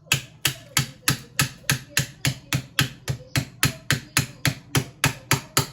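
Rapid, regular hard strikes, about three to four a second, as a tool chips at built-up ice in a fridge freezer to free a block of paneer frozen in place.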